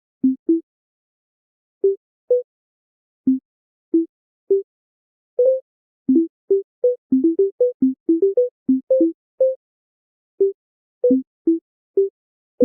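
Short synthesized blip tones, each a single clean note at one of a few different pitches, popping at irregular intervals with dead silence between them and coming in a quick run around the middle.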